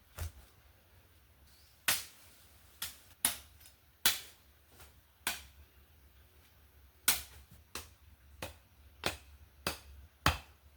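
A cutting tool chopping at brush or wood: about a dozen sharp, separate blows at an uneven pace, one every second or so, with a short pause in the middle.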